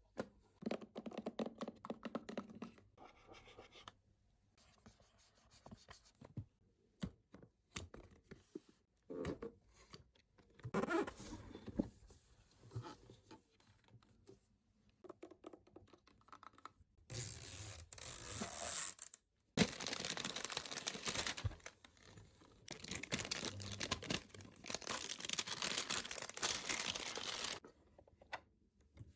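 Toy packaging being handled and unwrapped by hand. Scattered taps and clicks come first, then, in the second half, three stretches of tearing and rustling, each a few seconds long.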